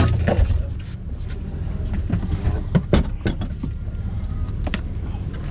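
Boat engine running steadily, with several sharp knocks and clicks around the middle.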